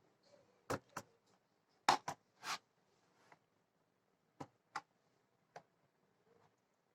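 Plastic clips of a Dell 3584 laptop's base cover snapping loose as a pry tool is worked along the seam: about eight sharp clicks at irregular intervals, some in quick pairs.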